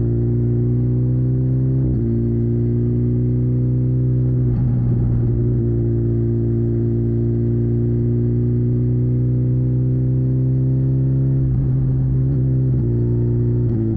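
2022 BMW S1000RR's inline-four engine running at a steady cruise, one even note with small shifts in pitch a few times as the throttle changes.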